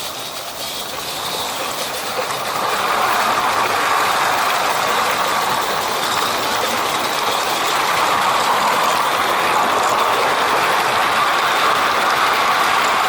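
Garden-railway model train running along 32mm-gauge track: a steady clattering rumble of wheels on the rails, growing louder over the first few seconds and then holding steady.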